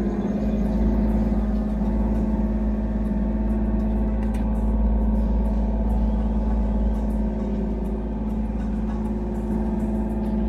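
Kubota U35-4 mini excavator's diesel engine running steadily, with steady pitched tones over it. The owner hears a strange whine from the machine when the air conditioning and hydraulics are in use, cause unknown.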